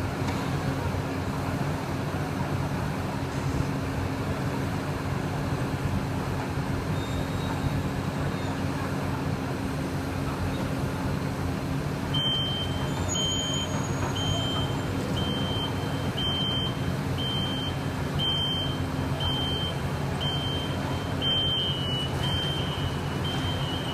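Heavy construction machinery's diesel engine running steadily. About halfway through, a reversing alarm starts beeping at a high pitch, roughly once a second.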